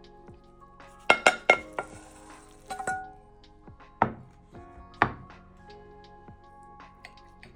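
Kitchen utensils knocking and clinking against dishes or a pan: a quick cluster of sharp knocks about a second in, a short scrape near three seconds, then two single knocks about a second apart, over background music.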